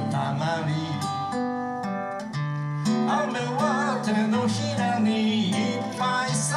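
A man singing a Japanese folk song while playing an acoustic guitar, his voice wavering in vibrato on the held notes.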